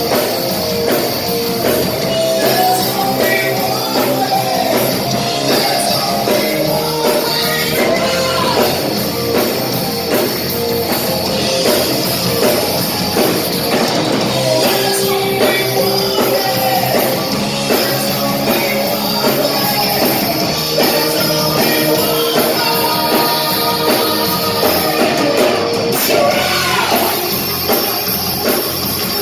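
Loud hard-rock music with a singer, playing continuously.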